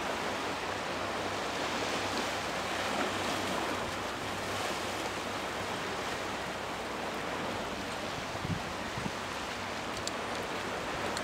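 Steady seaside noise of sea water and wind, with wind buffeting the microphone and a faint low hum underneath.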